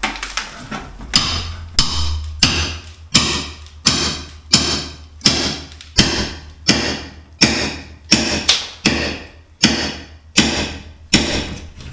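Hammer blows struck at a steady pace, about three every two seconds, each with a short ring after the hit.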